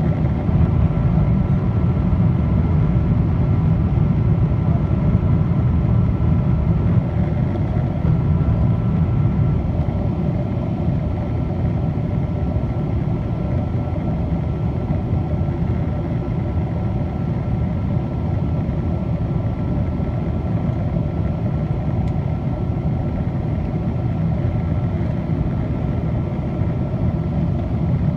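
Boeing 777-200 cabin noise during descent for landing: the engines and rushing air make a steady low roar, heard from inside the cabin, with a faint steady whine above it.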